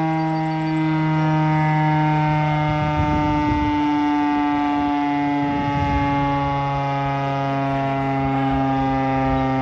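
Federal Signal STH-10A fire siren sounding a steady alert tone during its daily test. Its pitch dips slightly about halfway through and then holds.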